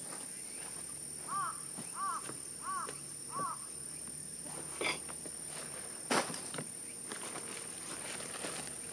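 Outdoor ambience of a steady high insect drone. Over it, an animal call rises and falls four times in quick succession about a second and a half in, and a single knock of a footstep on the wooden deck comes about six seconds in.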